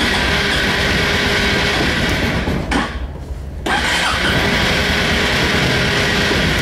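A 2004 Honda Reflex scooter's electric starter cranks its cold single-cylinder engine: a steady whirring churn. The starter lets go for about a second a little before halfway, then cranks again. This is a cold start at 14°F with the starter enrichment circuit and no throttle; the cold-soaked engine is slow to catch and needs extended cranking.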